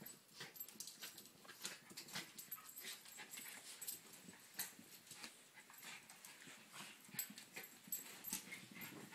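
Cairn terrier and terrier mix play-fighting: faint scuffling on carpet with many short snaps and clicks, and growls.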